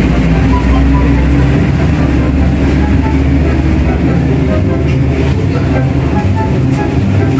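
Background music with sustained low chords that shift every few seconds and scattered short higher notes.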